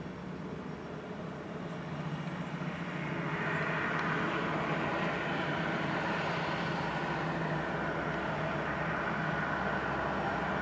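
Street traffic and a steady engine hum. A broad rushing vehicle noise swells about three seconds in and then stays loud.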